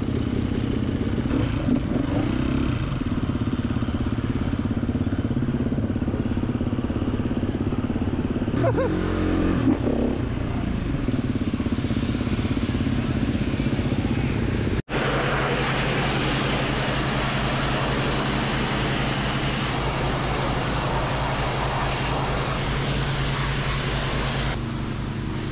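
Dirt bike engines idling. After a cut about halfway through, a petrol pressure washer's small engine runs at a steady pitch under the hiss of its spray as mud is washed off.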